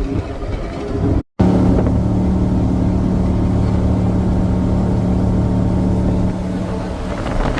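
Jet boat engine running at a steady pitch, after a brief cut about a second in.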